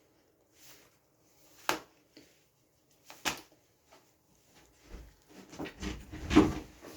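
A person eating dry crackers: two sharp crunching bites, then a busier run of chewing and crunching that is loudest near the end.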